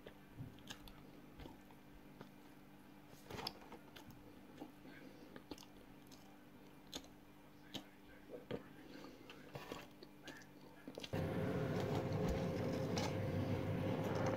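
Dry cornflour being chewed in the mouth: scattered small crunches and clicks. About eleven seconds in, a much louder steady noise with a single held tone starts suddenly.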